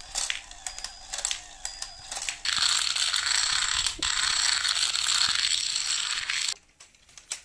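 Coloured plastic dominoes toppling one after another in a long chain: a fast, dense clatter of plastic tiles that cuts off suddenly near the end. Before it, a few scattered clicks.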